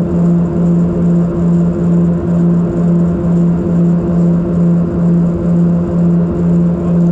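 Let L-410 UVP-E20 turboprop engine and propeller heard from inside the cabin in climb: a loud, steady low drone with a regular throbbing beat about twice a second.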